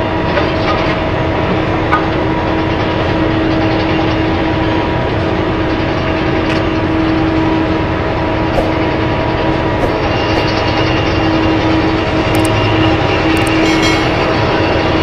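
BelAZ-75710 mining dump truck running under load with a steady droning whine as its bed tips up. From about ten seconds in, a hiss with scattered clicks and clatter joins it as the rock load slides off the raised bed.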